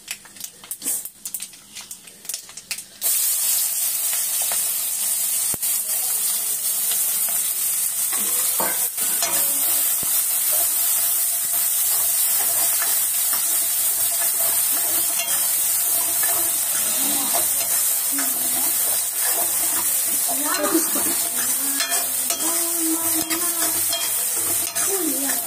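Quiet crackling of curry leaves and spices tempering in hot oil in a kadai. About three seconds in, chopped onions and garlic hit the oil and start a loud, steady sizzle, which goes on while a metal ladle stirs and scrapes them around the pan.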